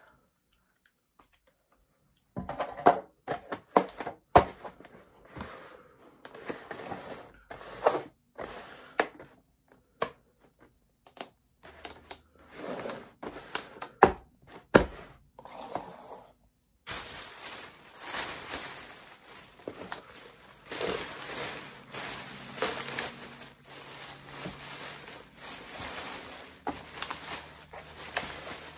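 Leftover sushi being packed up: a plastic takeout container and its wrapping are handled in a string of sharp clicks, knocks, scrapes and crinkling. About 17 seconds in this stops abruptly and a steady noisy background with a faint low hum takes over.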